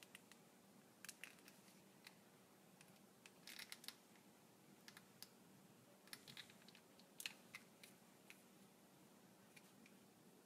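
Faint, scattered clicks and light rubbing from fingers gripping and bending a flexible eyeglass frame, over a low steady hum.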